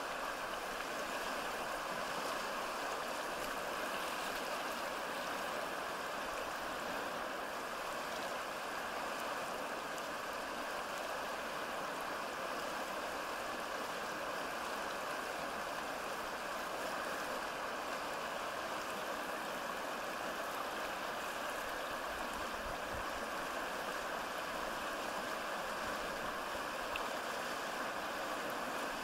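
Flowing stream: a steady, even rush of running water.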